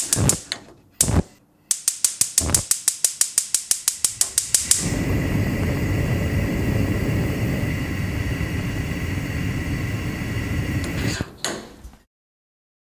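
Kitchen gas stove burner: a couple of knob clicks, then the igniter ticking fast, about eight times a second for about three seconds, until the gas lights. The flame then burns with a steady rushing hiss for about six seconds, and a few clicks of the knob shut it off.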